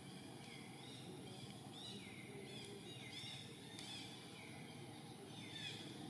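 Young long-tailed macaque giving a series of short, high-pitched squeals, each rising and falling, while being pinned to the ground by another macaque.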